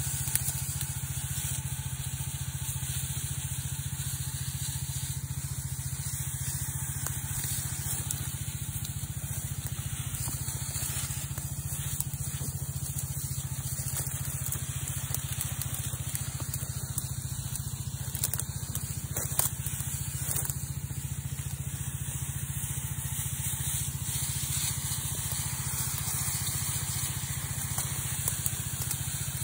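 Spray lance hissing steadily as herbicide mix is sprayed onto undergrowth, over the constant hum of the Robin 3.5 hp engine driving the power-sprayer pump. A few short clicks come through, the clearest near the start and in a cluster a little past the middle.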